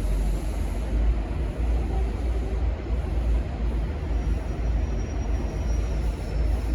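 Steady low rumble of V/Line N class diesel-electric locomotives running, with no horn sounding.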